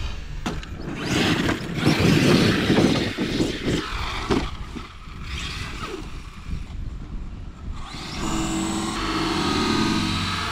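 Arrma Kraton 8S RC monster truck with a Castle brushless power system driving hard. There is loud rough noise with a few sharp knocks over the first few seconds, then from about eight seconds in a steadier motor whine.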